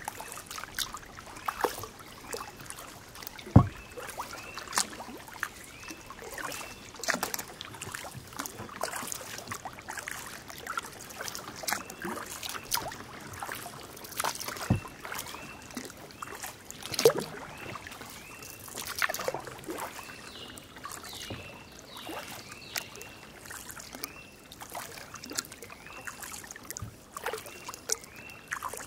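Kayak paddle strokes dipping and splashing in calm water every second or two, with water trickling off the blades. Two sharp knocks stand out, the louder about three and a half seconds in and another near fifteen seconds. Short chirps repeat in the background.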